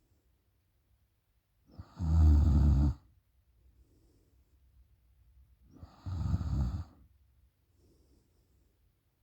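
A woman snoring open-mouthed in her sleep: two loud, rattling snores about four seconds apart, each about a second long, with faint breaths out between them.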